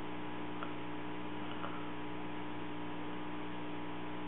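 Steady electrical mains hum with an even hiss behind it, unchanging throughout.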